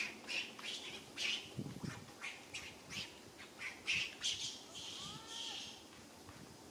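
A rapid, irregular series of short, harsh, high-pitched animal squawks, about a dozen over several seconds, with one longer call a little after five seconds in.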